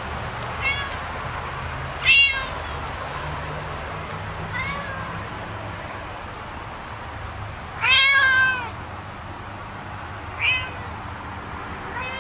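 A cat meowing about six times, with the loudest calls about two seconds in and near eight seconds, the latter drawn out, over a steady low hum.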